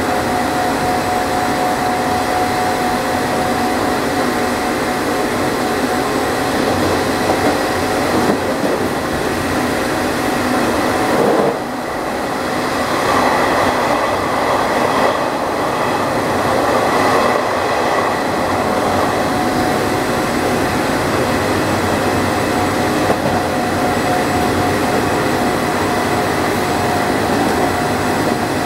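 Resistor-controlled Nishitetsu 5000 series electric train running at speed, heard from inside the car: a steady whine from the traction motors and gears over the rumble of the wheels on the rails. About eleven seconds in the sound dips suddenly, and a rougher rushing noise follows for several seconds.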